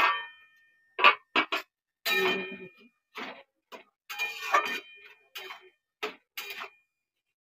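Metal kitchenware clinking and clanking: an aluminium pot lid lifted and set down, and a utensil knocking against metal pots on a gas stove. About a dozen short, uneven knocks, some ringing briefly.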